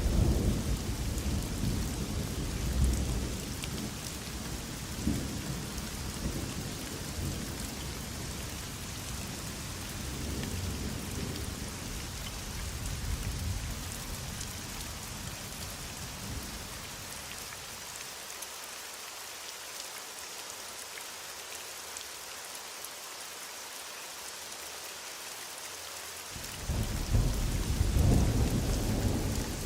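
Heavy rain falling steadily, with distant thunder rolling in the first half and dying away. A fresh rumble of thunder comes in suddenly near the end.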